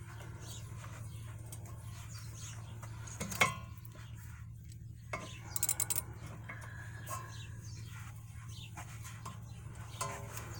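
Socket wrench working on a rear shock's lower mounting bolt: a sharp metallic clank a few seconds in, then a quick run of ratchet clicks, with a few lighter clicks later, over a steady low hum.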